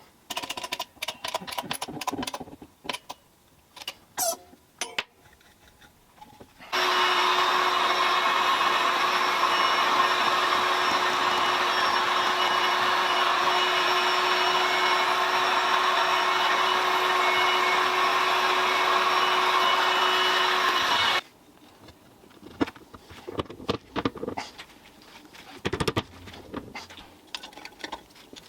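Meddings drill press running steadily with a held hum for about fourteen seconds, starting about seven seconds in and cutting off abruptly. Before and after it, scattered clicks and knocks of metal parts being handled.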